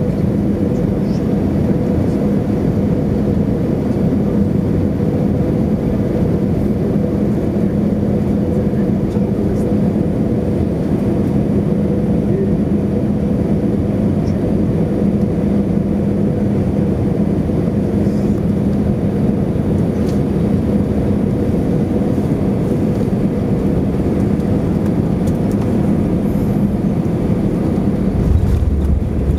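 Airbus A320 cabin noise on final approach: a steady drone of jet engines and airflow with a constant low hum. Near the end a deeper rumble comes in as the main wheels touch down on the runway.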